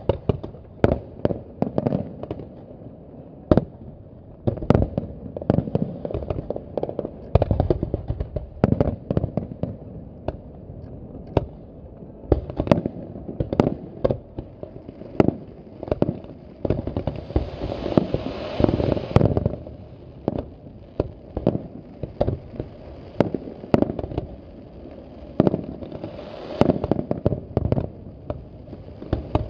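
Aerial firework shells bursting in rapid, irregular succession, dozens of sharp bangs, with a longer stretch of hissing crackle a little past the middle.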